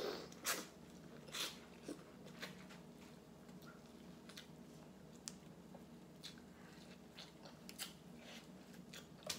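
Close-miked biting and chewing of buttered corn on the cob: sharp, wet crunches and mouth clicks at irregular moments, a few louder ones in the first two seconds, over a faint steady hum.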